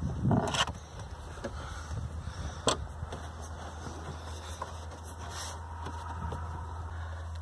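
Screwdriver and hands working a screw into the plastic dash trim bezel: a brief rustling knock near the start and a sharp click a few seconds in, over a steady low hum.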